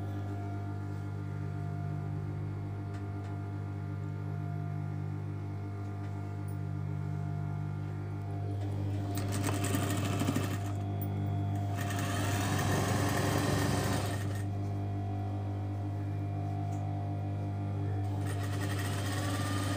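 Industrial lockstitch sewing machine stitching in short runs, about nine and twelve seconds in and again near the end, over a steady low hum.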